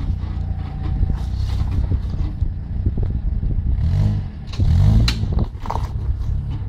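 Suzuki Jimny's engine running at low revs as it crawls over loose rocks, with stones knocking and scraping under the tyres. Engine and rock clatter swell louder about four to five seconds in.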